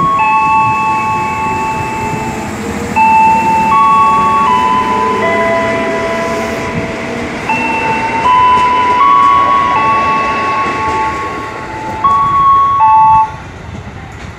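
KRL Commuter Line electric train running past with a low rumble. Over it plays a loud melody of held electronic tones that step from pitch to pitch every second or two.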